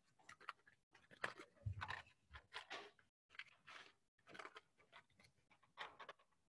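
Near silence broken by faint, scattered rustles and small clicks of things being handled by hand, such as papers at a lectern.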